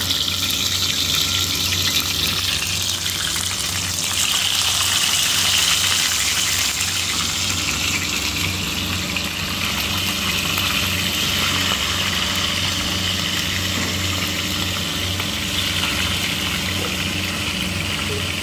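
Tilapia pieces sizzling steadily in hot oil in a pan as more pieces are dropped in one by one, with a steady low hum underneath.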